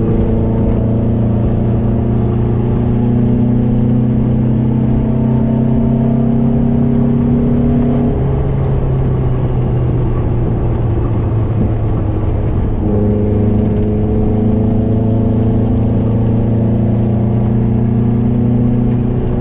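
VW Beetle's 1835 cc air-cooled flat-four engine pulling at about 90–100 km/h, heard from inside the cabin as a steady drone whose pitch changes little.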